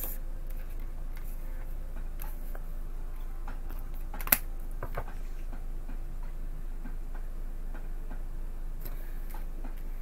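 Tarot cards being shuffled and handled, giving soft scattered ticks and one sharp click about four seconds in, over a steady low electrical hum.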